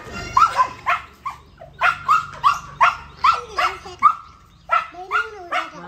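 White spitz-type dog barking over and over in quick short barks, about three a second, with a brief pause near the end: a fit of angry protest barking.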